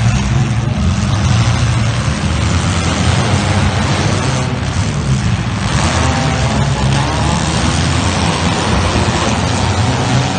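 Demolition derby car engines running together in a loud, steady din.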